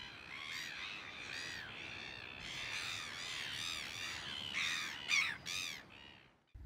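Gulls calling over and over: a string of short, harsh, arching cries, often overlapping, loudest a little after five seconds in and cutting off just before the end.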